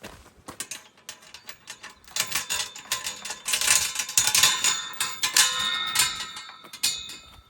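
A metal gate's latch and chain being worked by hand: a rapid, irregular run of clicks and rattles with ringing metal, loudest from about two seconds in until near the end.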